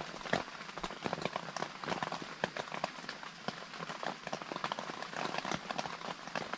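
Rain falling on a tent, heard from inside: many irregular drops tapping on the tent fabric.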